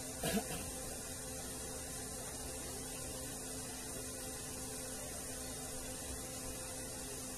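Steady electrical hum, with one brief louder sound with a quick pitch sweep about a third of a second in.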